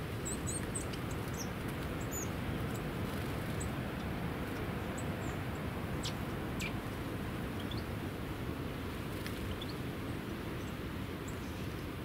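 Small songbirds giving short, high chirps scattered throughout, with two sharp downward-sliding calls about six seconds in, over a steady low rushing background noise.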